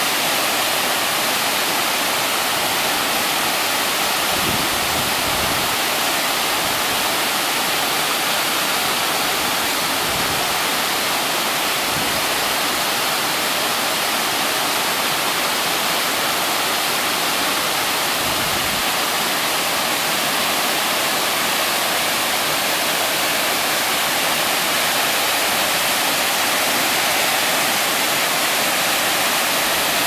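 Waterfall cascading down stepped rock ledges into a pool: a steady, unbroken rush of falling water.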